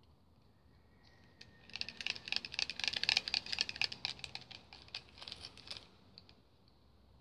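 A burst of rapid light clicks and taps lasting about four seconds, starting about two seconds in, then a few scattered clicks.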